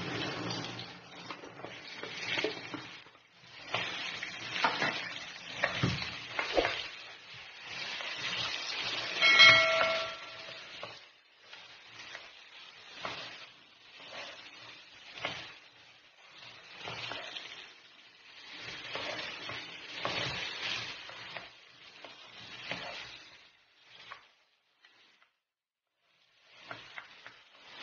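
Food frying in a pan while a spatula stirs and scrapes it, in bursts of a second or two with short gaps between. A metal utensil clinks on the pan about nine seconds in and rings briefly.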